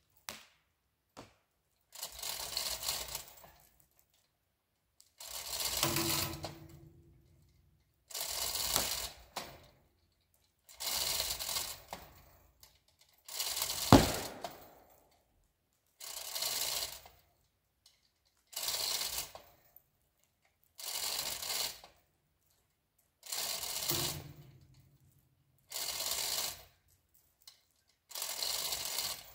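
A 2-ton chain fall (hand chain hoist) being worked by hand under load: the hand chain clatters through the hoist in bursts about a second long, one with each pull, roughly every two to three seconds. One sharp loud knock comes about fourteen seconds in.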